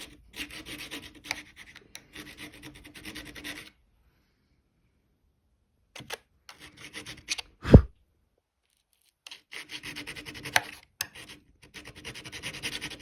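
Metal file of a Victorinox SwissTool multitool rasping in quick back-and-forth strokes, in three spells with short pauses between. A single loud thump comes a little past the middle.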